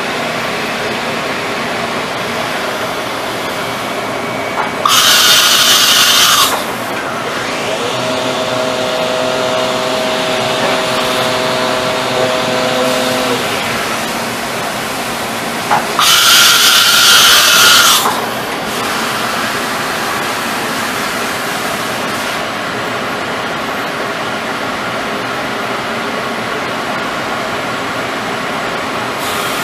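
Miyano TSV-35 CNC drill and tap center running under power: a steady machine hum throughout, with two loud high whirring bursts of about one and a half to two seconds each that ramp up and down in pitch at their edges, and a steady humming tone for about five seconds between them.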